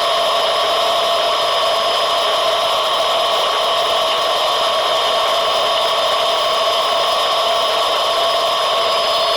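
John Deere 9500 combine running steadily, a constant unchanging machine drone with a fan-like hiss.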